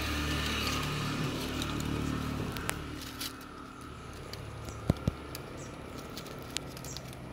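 A motor vehicle engine running steadily with a low hum, fading away about three and a half seconds in. Two sharp clicks in quick succession follow about five seconds in.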